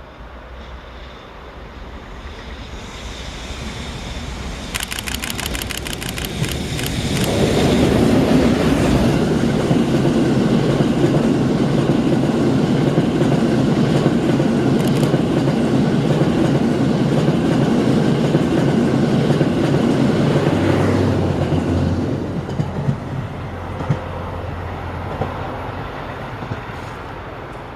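Cassiopeia sleeper train hauled by an EF510 electric locomotive passing close by. It grows louder on approach, with a rapid clatter of wheels over rail joints about five seconds in. The coaches then roll past loudly and steadily for about fourteen seconds before fading away.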